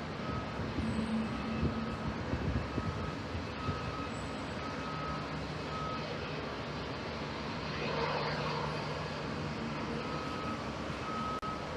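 Street traffic with a vehicle's reversing alarm beeping about once a second over a steady engine hum. The beeps pause for a few seconds while a louder vehicle swells past about two thirds of the way in.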